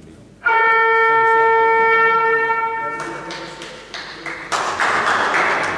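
Basketball scoreboard buzzer sounding one loud, steady horn tone for about two and a half seconds, starting suddenly about half a second in. Voices and a louder rush of noise from the hall follow.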